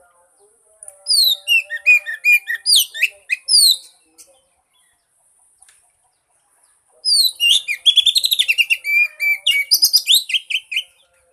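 Oriental magpie-robin singing in two bouts of rapid, varied whistled notes and quick downward slurs, with a pause of about three seconds between them.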